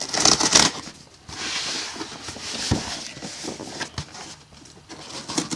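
Cardboard shipping box being handled and turned around on a desk: scraping and rubbing of cardboard in several bursts, with a couple of light knocks.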